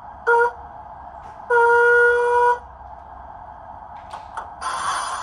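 Steam sound from the DCC sound decoder (Zimo MS480R running Digitrains' MS055P industrial steam project) of an O gauge Hudswell Clarke model tank engine, played through its small on-board speaker. Over a steady background hiss of the engine standing, the whistle gives a short toot and then a longer blast of about a second. A few clicks follow, then a louder hissing rush of steam starts near the end.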